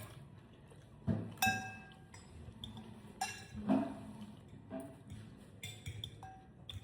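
Cutlery and dishes clinking at a meal table: several separate sharp clinks against plates or glassware, each ringing briefly.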